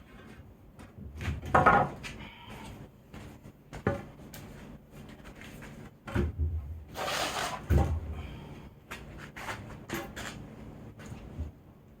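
Wooden boards knocking and clunking as they are handled and set in place, with a longer scrape of wood about seven seconds in.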